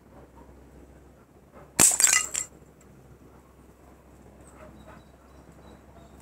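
A glass bottle shattering when a 5.5 mm (.22) air-rifle pellet hits it: one sharp impact followed by about half a second of breaking, tinkling glass.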